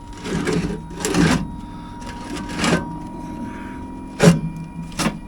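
Several short clanks and knocks of tools and metal trailer suspension parts being handled, the sharpest two near the end, over a steady low hum.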